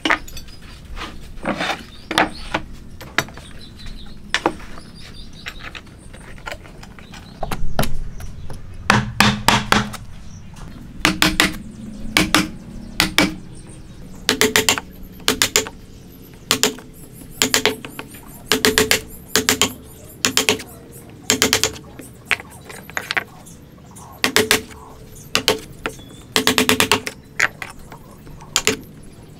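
Hand chisel struck again and again, chopping a mortise into a wooden board: sharp knocks with a short ring, mostly in quick groups of two to four, as wood chips are levered and split out.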